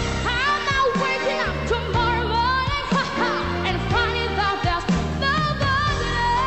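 Pop song sung with strong vibrato and quick melodic runs over a band backing.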